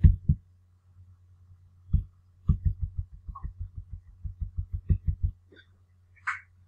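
Computer mouse scroll wheel turning in quick notches: a run of soft low thumps, about five a second, starting about two and a half seconds in and stopping a little after five seconds. A steady low hum runs underneath.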